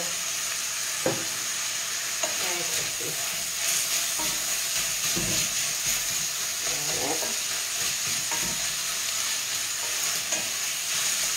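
Sausage meat sizzling as it fries in a stainless steel pan, stirred by hand, with a few short knocks of the utensil against the pan.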